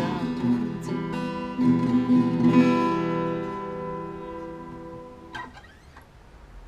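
Acoustic guitar strummed through the closing bars of a song, then a final chord left to ring and fade away. A short scrape is heard near the end as the ringing dies.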